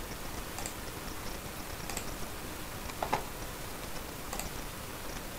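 Computer mouse clicks: about four short, single clicks roughly a second apart, the loudest about three seconds in, over a steady microphone hiss.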